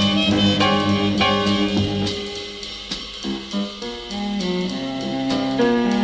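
Cool jazz ensemble playing, with horns held over a drum kit. The band thins out about two seconds in, then a lower melody line picks up.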